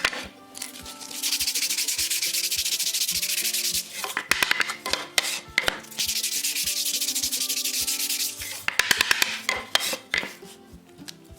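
Sandpaper rubbing on wood in rapid strokes: two long continuous spells with a run of separate short strokes between them and more strokes near the end. Light background music plays underneath.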